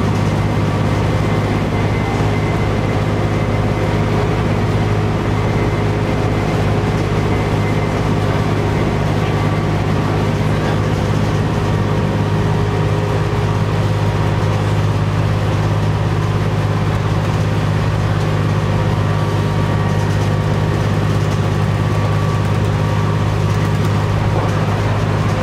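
Cummins ISC diesel engine of a 1998 New Flyer D40LF transit bus running at a steady pitch while under way, heard from inside the bus, with a steady whine above the low drone and road noise.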